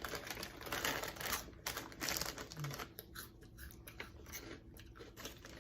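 Plastic snack bag of jalapeño cheddar cheese puffs crinkling and rustling as it is opened. The crackling is densest in the first two seconds, then thins to fainter scattered crackles.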